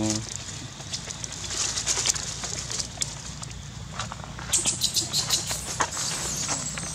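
Dry fallen leaves crackling and rustling under a macaque's hands and feet as it walks. The crackles come in short irregular clusters and grow busiest about two-thirds of the way through.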